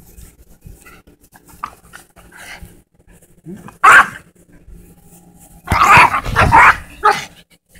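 Small Yorkshire terriers barking while playing with a ball: one sharp bark about four seconds in, then a quick run of several barks a second and a half later.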